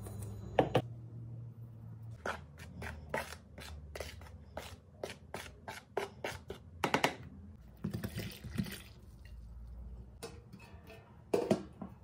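Kitchen utensils tapping and clattering: a metal mesh sieve and a stirring utensil knocking against a plastic mixing bowl as flour is sifted and stirred. There is a run of light taps, a few a second, and a few louder clatters, one about half a second in, another around seven seconds, and the last near the end.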